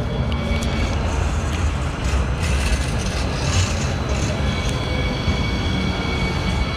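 NJ Transit Hudson-Bergen Light Rail car, a Kinki Sharyo low-floor light-rail vehicle, passing close by on street track. Its wheels on the rails make a steady rumble, with a thin high whine over it.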